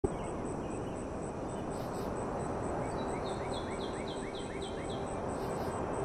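Outdoor nature ambience: a steady hiss under a high insect chirr that pulses about four to five times a second. About three seconds in, a bird sings a run of about seven quick repeated notes.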